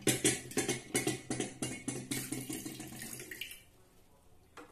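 Water splashing and pouring: a quick run of splashes for about two seconds, then a steady trickle that fades out.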